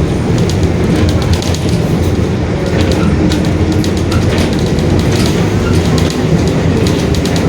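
Mercedes-Benz OF-1721 Bluetec 5 bus under way: steady engine and drivetrain drone with a continuous growl from the differential, over many short rattles and clicks.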